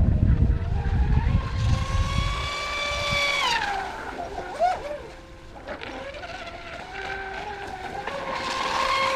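Brushless electric motor of an RC racing catamaran, a 3674-size 2200kv motor, whining at high throttle. Its pitch drops as the throttle is eased about three and a half seconds in, then climbs again near the end. A low rumble sits under it for the first couple of seconds.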